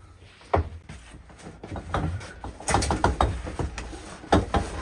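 Handling noise: a sharp knock about half a second in, then a run of small knocks, clicks and rustles of things being moved about, with another knock near the end.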